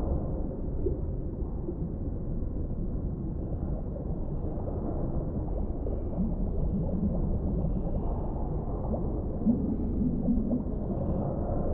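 Underwater ambience: a steady, muffled low rumble with faint gurgling and small ticks, and a few short low warbling tones about six and ten seconds in.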